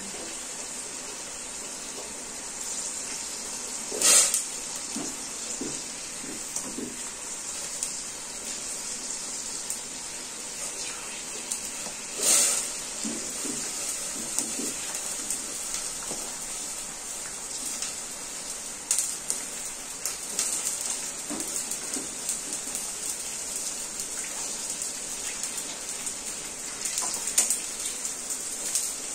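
Green peas deep-frying in hot oil: a steady, high sizzle with small crackles throughout. Two louder sharp cracks stand out, about four seconds in and again about twelve seconds in.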